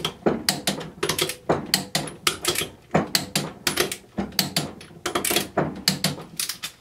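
Ratchet-style micrometer click torque wrench on the ring gear bolts: rapid metallic ratchet clicks and snaps in short bursts, several a second, as the bolts are run round and checked at 80 ft-lb.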